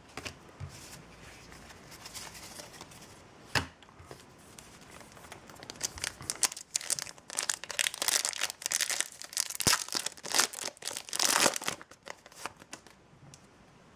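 Foil booster-pack wrapper being torn open and crinkled by hand, a dense crackling from about halfway through until near the end, after one sharp click earlier on.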